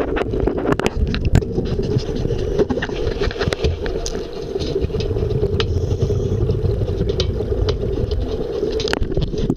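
Muffled underwater sound: a steady low hum with many scattered clicks and rattles, among them the bubbling exhaust of a diver breathing on a twin-hose regulator.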